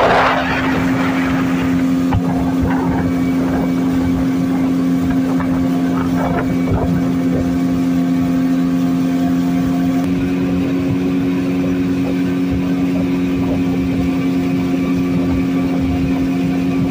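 Outboard motor of a wooden river longboat running steadily under way: a constant drone with water rushing beneath. A brief hiss of noise comes right at the start, and the engine tone shifts slightly about ten seconds in.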